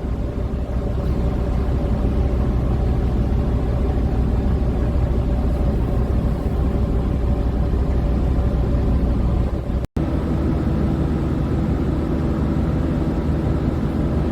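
Steady low rumble of a boat's engine running on the fjord, with a few steady hum tones. It drops out abruptly for an instant about ten seconds in, then carries on with a slightly changed tone.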